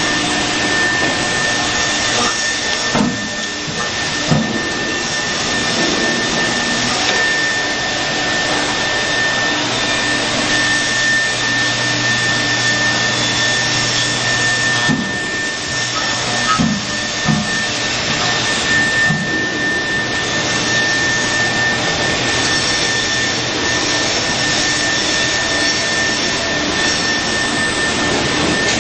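Five-axis CNC router spindle running while carving a wax mould: a steady high whine over a constant mechanical noise, with a few brief knocks scattered through.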